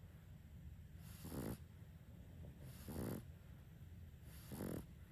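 Sleeping Boston Terrier snoring: three snores, about a second and a half apart, each a short buzzing breath with a hiss.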